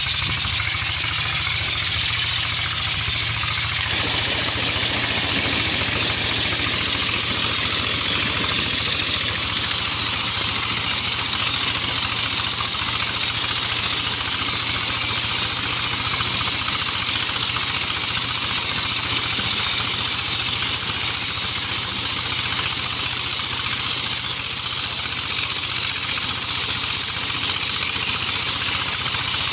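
Dompeng single-cylinder diesel engine running steadily, driving the suction pump that draws sand, with an even rushing hiss over its low drone.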